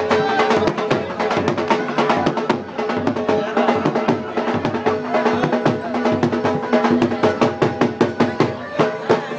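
Loud music driven by fast, dense drumming on a drum like a dhol, with a few steady notes held underneath.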